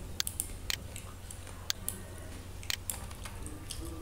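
Isolated clicks of computer keys, a few close together but mostly about a second apart, over a low steady hum.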